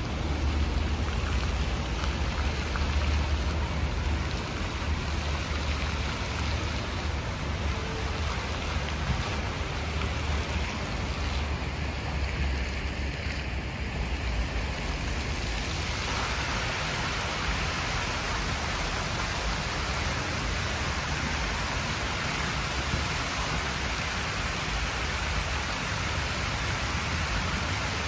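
Fountain water jets splashing down into a pool, a steady rain-like patter of falling water that grows louder about halfway through as the jets shoot higher. A low rumble runs underneath.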